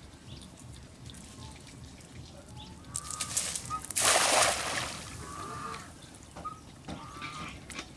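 Cast net landing on pond water with one short splash about halfway through.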